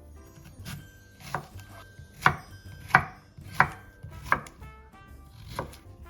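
Kitchen knife chopping on a cutting board, seven slow, evenly paced cuts.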